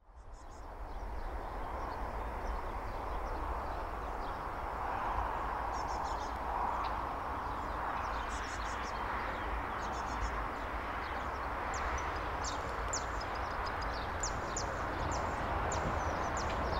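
Outdoor field ambience fading in: a steady rushing background noise with birds chirping in short, high notes, more often in the second half.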